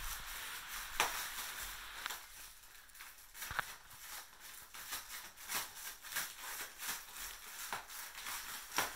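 Large foil number balloon crinkling and rustling as a toddler grips and pushes it, with a few sharp crackles at irregular moments.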